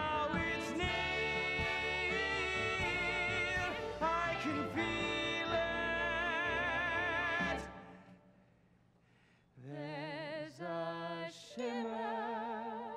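Musical-theatre song with orchestra: held, operatic sung notes with vibrato over a full accompaniment. A little past the middle the music falls away to a brief hush. A man's voice then sings on in held notes with vibrato over a much thinner accompaniment.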